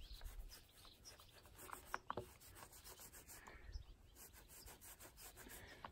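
Faint rubbing of a small foam paint roller being rolled over a Land Rover body panel with wet paint, with a couple of light clicks about two seconds in.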